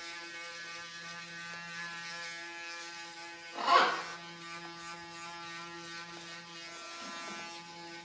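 Rotary electric shaver running against a man's chin, a steady buzzing hum. About halfway through there is one short, loud burst of sound.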